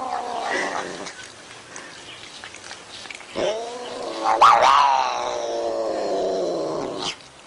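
Tortoiseshell cat yowling: a call tails off about a second in, then one long drawn-out yowl starts about three seconds in, rises, then slowly falls in pitch and cuts off near the end.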